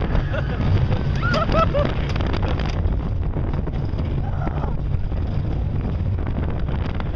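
Wind rushing over the microphone and the low rumble of a roller coaster train running along its track at speed. Riders give several short yells about one to two seconds in.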